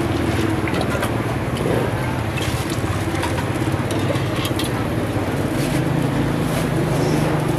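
A steady low mechanical hum, like engine or motor noise, runs throughout. Scattered light clinks and knocks come from a metal ladle and ice against large glass drink jars as a drink is scooped into a plastic bag.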